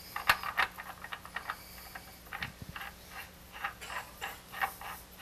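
Irregular light clicks and taps of parts being handled and fitted at the headstock spindle of a stopped wood lathe.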